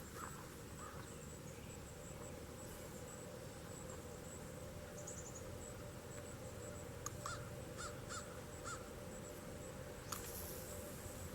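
A bird calls four times in quick succession, short harsh notes, over a steady low outdoor background hiss.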